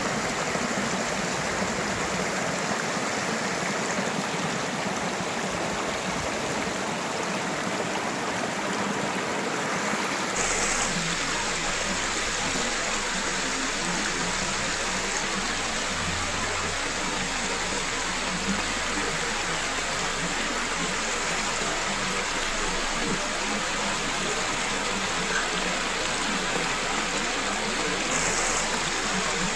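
Shallow mountain creek running fast over rocks in a steady rush of water, heard close up. The tone of the rush shifts slightly about ten seconds in.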